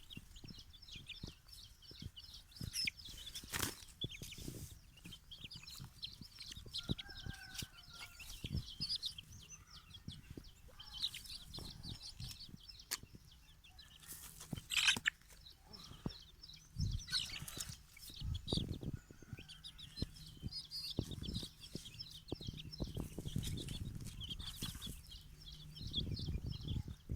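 Aseel chickens: scattered clucks and wing flaps, with knocks and bumps, over a constant high, busy chirping.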